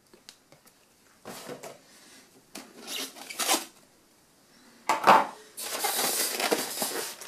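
Polystyrene packaging tray being handled, with rubbing, scraping and rustling in several short bursts; a sharp burst about five seconds in is followed by a longer rustle that runs nearly to the end.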